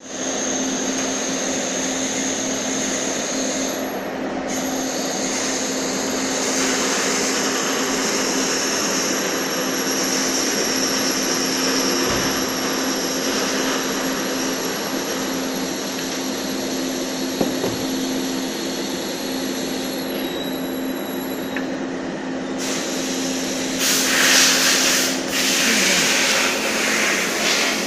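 Machinery running steadily: a constant hum under an even mechanical noise, with about two seconds of louder, hissier noise near the end.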